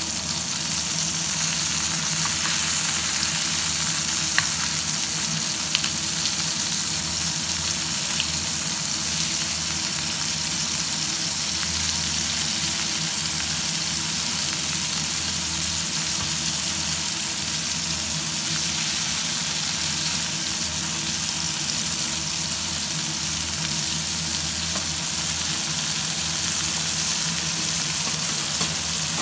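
Fish steaks and small whole fish shallow-frying in hot oil in a pan: a steady sizzle, with a couple of light clicks about four and six seconds in.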